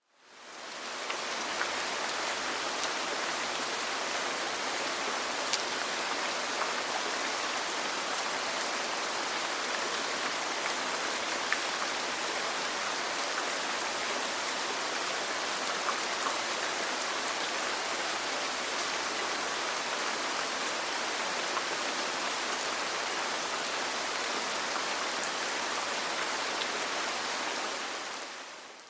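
Steady rain, an even hiss with a few faint ticks of drops. It fades in over about the first second and fades out near the end.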